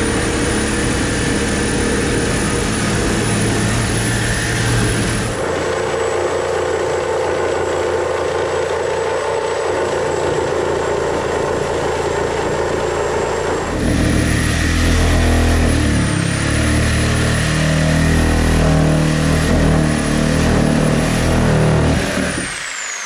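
Corded handheld electric tool running steadily with a high motor whine; the whine falls away as the motor spins down near the end.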